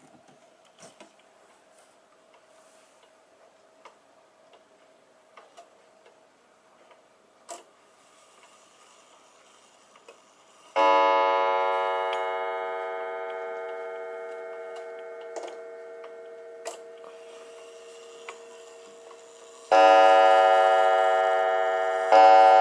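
Kieninger mechanical wall clock ticking faintly, then its hammer strikes the coiled gong three times: once about halfway in, with a long fading ring, then twice more near the end.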